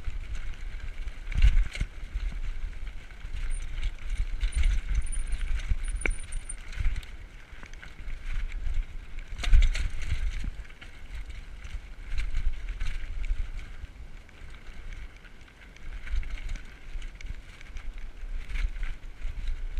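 Diamondback Recoil 29er mountain bike rolling fast over a rocky dirt trail: tyres crunching on gravel, the bike rattling, and wind buffeting the microphone, with louder jolts over bumps about a second and a half in and again about nine and a half seconds in.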